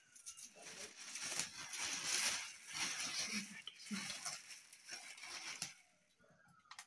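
Thin plastic bag crinkling and rustling as it is opened and raw chicken pieces are pulled out of it. The crinkling dies away near the end.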